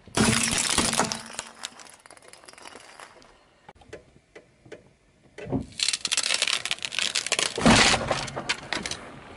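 Small glass light bulbs shattering under a car tyre in a loud burst of crunching and tinkling, trailing off into scattered cracks. After a low thump, a stack of glass panes cracks and crunches under the tyre in a long run of crackling that is loudest near the end.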